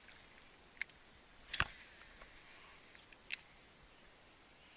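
A handful of faint, sharp clicks from fishing tackle as a cast frog lure is worked back on the line, the loudest about a second and a half in.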